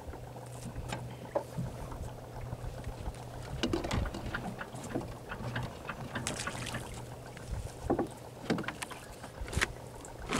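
Small fishing boat at sea: a steady low hum under water lapping and slapping against the hull, with scattered small knocks and clicks.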